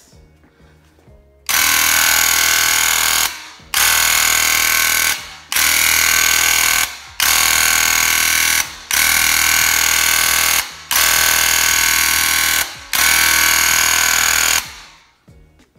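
Graco TrueCoat 360 VSP handheld airless paint sprayer running in seven bursts of about a second and a half to two seconds each, a loud buzzing hiss of the pump and spray, cut off briefly between bursts as the trigger is released between spray passes.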